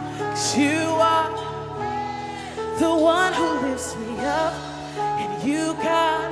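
Church worship band music: sustained chords with a singing voice gliding and bending over them.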